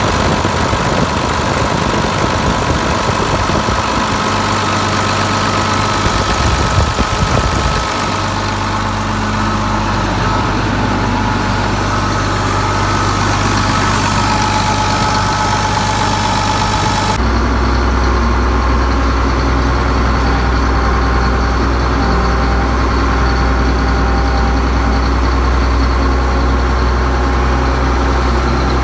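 Allis-Chalmers 210 tractor's six-cylinder diesel engine idling steadily. At about seventeen seconds the sound turns deeper and duller, the hiss above it falling away.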